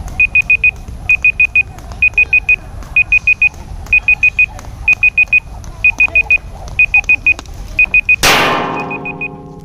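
Electronic timer alarm beeping: four short, high beeps in quick succession, repeating about once a second. Near the end, a loud clatter close to the microphone.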